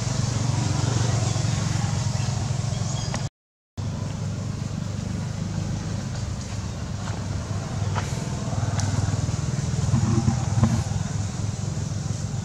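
Steady low motor rumble with a few faint clicks. It cuts out completely for about half a second a little over three seconds in.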